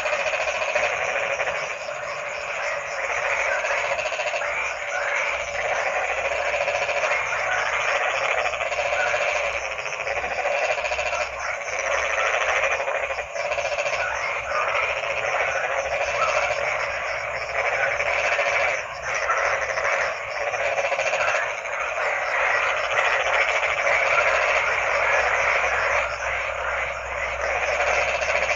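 Dense chorus of many frogs croaking together, a continuous overlapping racket without pauses.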